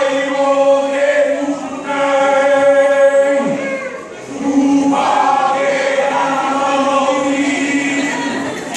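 Voices chanting in long held notes, in two phrases of about four seconds each, with a dip in pitch and a short break between them.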